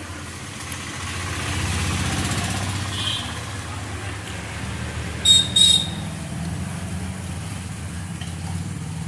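A steady low engine rumble, swelling about two seconds in, with two short, sharp high-pitched chirps just past the middle.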